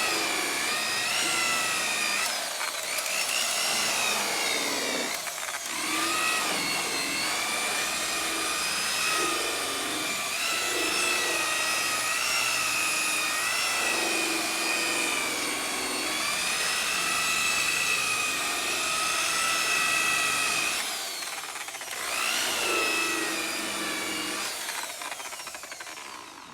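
Rotary power tool spinning a buffing pad on a plastic headlight lens: a motor whine that wavers in pitch as the pad is pressed and moved, dropping out briefly twice and stopping near the end.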